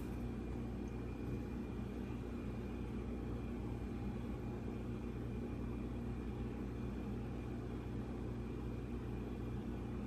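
A steady low mechanical hum with a faint high whine above it, unchanging throughout.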